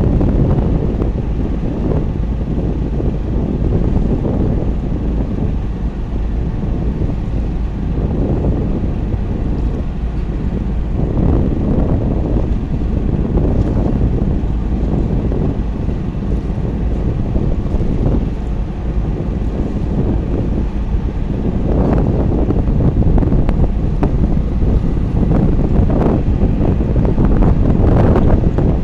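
Wind buffeting the microphone: a loud low rumble that swells and fades in gusts.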